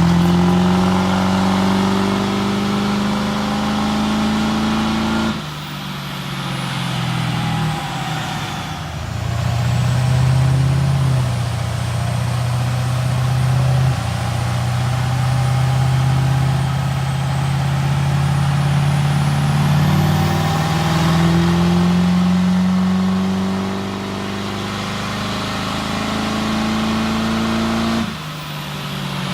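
Diesel pickup truck engines running hard at high revs in a series of clips cut together. The engine note holds high and slowly rises and falls, changing abruptly at cuts about five, eight and twenty-eight seconds in.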